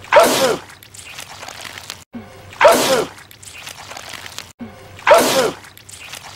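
A man's loud, wet sneeze, the same sneeze repeated three times about two and a half seconds apart. Each is a falling cry inside a spray of noise, and each starts abruptly after a brief dead gap.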